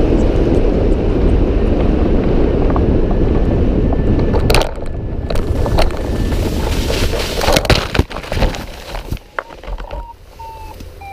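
Wind rushing over the microphone in hang glider flight. It drops off sharply about four and a half seconds in, and scattered knocks and clicks follow.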